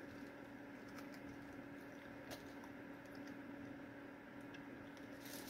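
Very quiet room tone: a steady low hum with a few soft, faint clicks.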